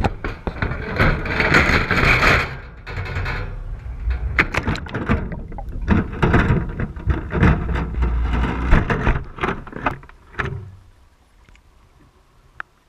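Wire crab trap being handled and dropped into the water, heard from a GoPro inside the trap: rushing water noise, knocks and rattles of the trap's wire as it goes in and sinks. It settles to near quiet about eleven seconds in.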